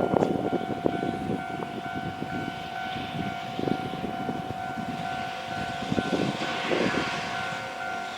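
Japanese level-crossing warning bell ringing its repeating electronic tone, over the rumble and scattered clanks of a freight train rolling over the rails.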